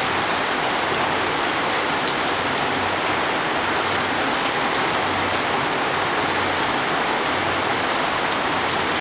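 Heavy rain falling steadily, pattering on brick paving and puddles.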